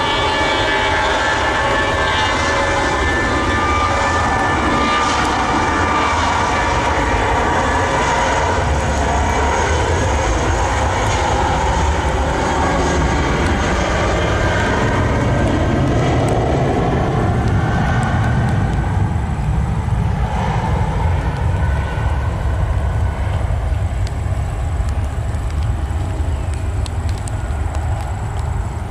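Airbus A320 jet engines running loud as the airliner rolls along a wet runway. Whining tones glide in pitch as it passes, and a deep rumble builds in the middle before easing slightly near the end.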